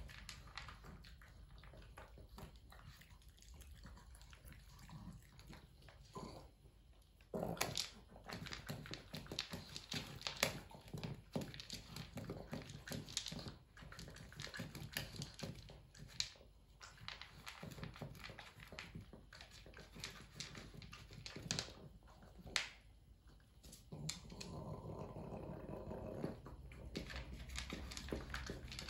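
Pug eating from a food bowl on the floor: irregular crunching, chewing and sharp clicks, sparse at first and frequent from about seven seconds in.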